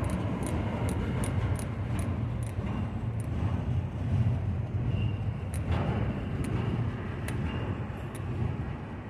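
Double-stack container train cars rolling past: a steady low rumble with sharp metallic clicks from the wheels, coming several times a second at first and then more sparsely, and a faint brief squeal about halfway through.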